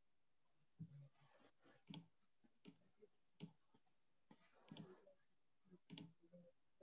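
Near silence with scattered faint clicks from a computer mouse.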